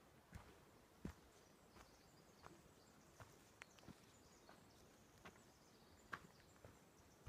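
Quiet footsteps on a dirt forest trail, about one soft step every three quarters of a second, with faint high chirps in the background.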